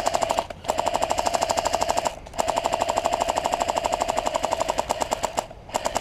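Airsoft automatic electric gun firing full-auto bursts at close range, a rapid mechanical rattle of shots. There are four bursts: a short one at the start, one of about a second and a half, a long one of about three seconds, and a short one near the end.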